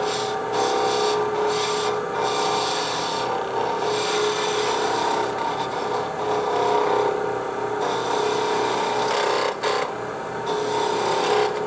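Spindle gouge cutting a bead into a spinning wooden spindle on a lathe: a steady scraping hiss of the cut over the lathe's steady hum. The cutting hiss breaks off briefly several times as the gouge is rocked and lifted.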